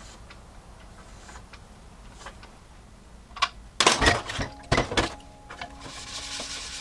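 Dishes knocking and clinking in a stainless steel sink. After a few quiet seconds with faint soft clicks, a ceramic bowl and a pan clatter several times over about a second. Then a sponge starts scrubbing a dish.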